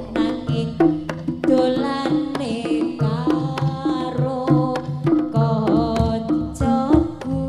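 A female sinden sings a jaranan song in a wavering, ornamented melody, backed by a gamelan ensemble with steady drum strokes and hanging gongs.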